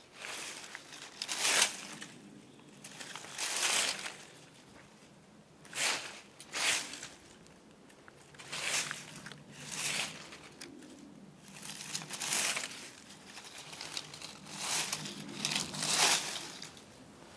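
Footsteps crunching through dry leaf litter: about ten separate crunches at uneven gaps of one to two seconds, some in quick pairs.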